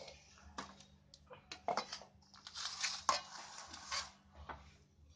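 Hands working a crumbly ghee-and-jaggery ladoo mixture in steel and brass plates: a few light clinks and knocks of the metal vessels, then a gritty rustling scrape lasting about a second and a half, with a sharp clink in the middle of it.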